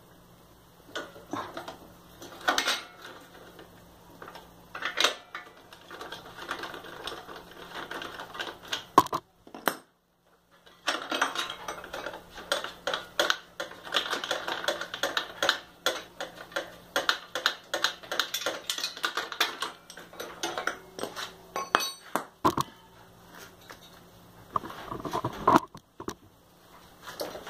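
Ratchet wrench clicking in quick runs as the motorcycle's 14 mm exhaust mounting bolts are undone, with scattered clinks of the tool against metal.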